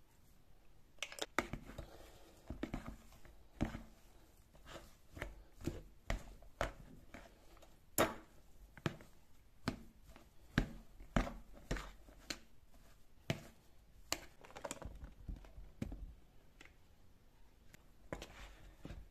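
A metal fork mixing mashed potato in a glass bowl: soft squishing with irregular sharp taps of the fork against the glass, about one or two a second.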